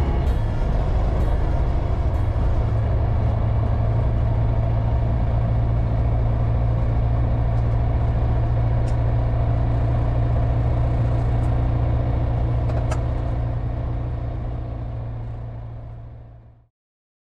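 Comco Ikarus C42 ultralight's engine and propeller running steadily at low taxi power, heard from the cockpit, with a few faint ticks. The sound fades out over the last few seconds to silence.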